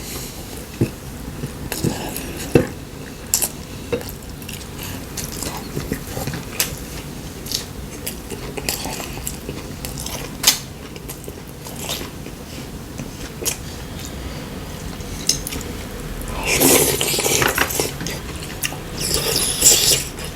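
Eating at a table: cutlery clicking and clinking against bowls and dishes in scattered single strikes, with some chewing. A louder, busier stretch of clatter comes about three-quarters of the way through and again near the end.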